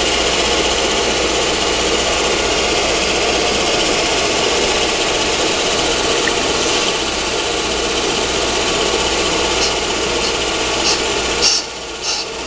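Accuturn brake lathe running and spinning a brake drum, with the cutting bit just touching and scratching the drum's inner braking surface as it is fed in to find the zero point. A steady mechanical running sound with an even hiss over it, which drops away near the end.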